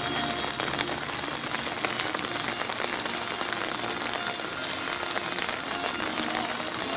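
Steady rain falling, with a dense patter of drops on umbrellas and wet paving.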